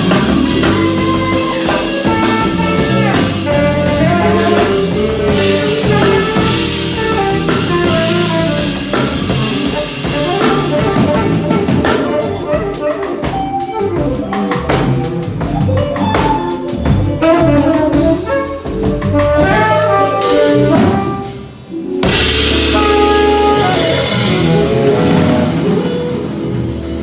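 Live band playing a song at a sound check: drum kit and bass under a melodic lead line. About 21 seconds in the playing briefly drops away, then the full band comes back in brighter and fuller.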